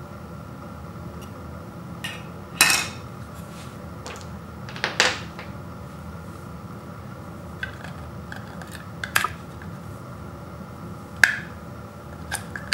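Sharp clicks and clacks of hard plastic and metal as a remote control's battery cover and batteries are handled and the batteries are pushed into the battery compartment. About five scattered knocks over a steady background hiss, the loudest about two and a half and five seconds in.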